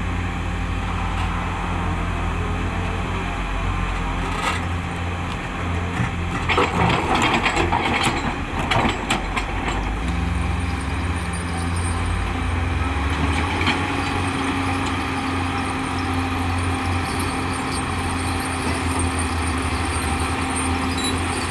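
Heavy diesel earthmoving machine engine running steadily, with a burst of clattering and scraping of rock and metal from about six to nine seconds in, and a couple of single knocks.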